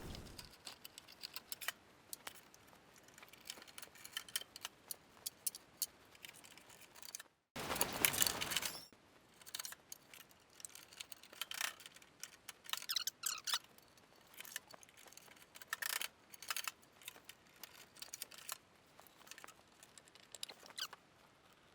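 Scattered light metallic clicks and rattles from handling steel tool chest drawers and their slides, with a short louder sliding rush about eight seconds in.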